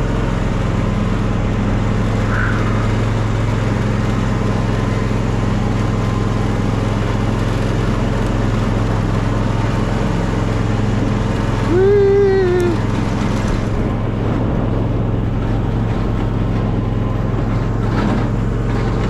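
A motor vehicle engine running steadily with a low hum, and a short pitched whine about twelve seconds in.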